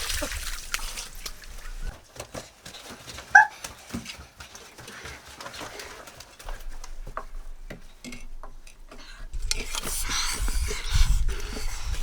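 A single short high animal call, like a yelp, about three seconds in, among faint scattered knocks and rustles; a rushing noise builds from about two-thirds of the way through.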